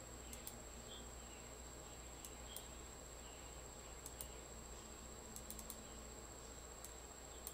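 Faint, scattered clicks of someone working at a computer, a few at a time, over a steady faint high whine and low hum.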